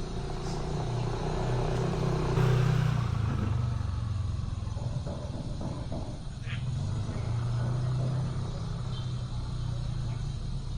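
Street traffic: motor vehicle engines running steadily, with one passing close and loudest about two to three seconds in.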